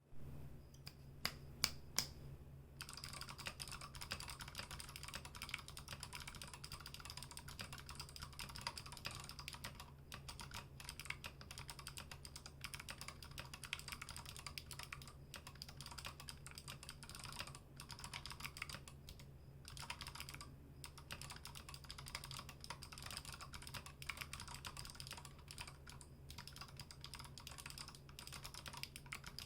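Typing on a Drop ALT mechanical keyboard with clicky Kailh Box Pink switches and MT3-profile PBT keycaps. A handful of single keystrokes in the first two seconds, the loudest about a second and a half in, then fast continuous typing with a few brief pauses. A steady low hum lies underneath.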